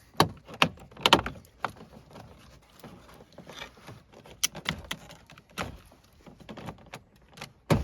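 Truck door trim being pried off and handled: a handful of sharp plastic clicks and snaps at irregular intervals, the loudest about a second in and at the very end.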